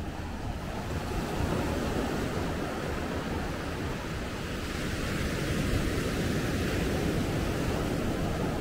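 Steady rush of surf washing on a beach, mixed with wind.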